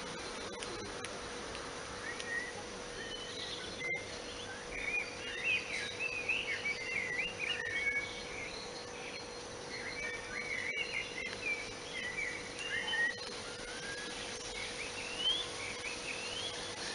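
Small birds chirping and twittering, busiest through the middle, over a steady faint hum and outdoor background noise.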